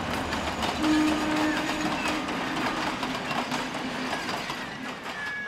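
Steady rushing and rumbling of a passing vehicle, with a low steady hum held for about four seconds.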